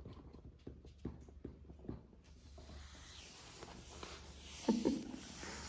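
Lakeland Terrier puppies scrabbling and playing: light claw taps and knocks on a wood floor, then a steady rustling as they root around in a fabric toy bin, with two brief vocal sounds about two-thirds of the way through.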